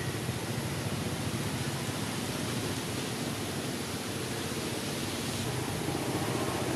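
Steady, even rushing noise with no distinct calls or knocks in it.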